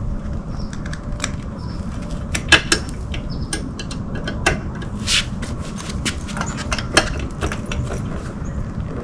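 Scattered metallic clicks and clinks of hand tools and parts as a Harley Sportster's battery is being swapped, sharpest about two and a half seconds and seven seconds in, over a steady low rumble.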